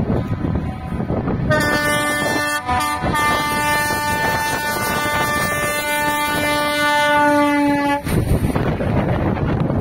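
A vehicle air horn sounds in one long steady blast of about six seconds, with a brief break shortly after it starts, over a low rumble of vehicles.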